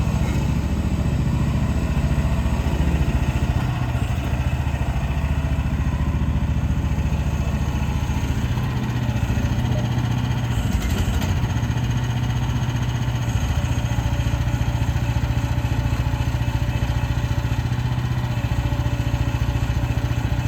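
Briggs & Stratton 420cc single-cylinder gas engine of a mini hydraulic excavator, running steadily, with its low note shifting slightly about halfway through.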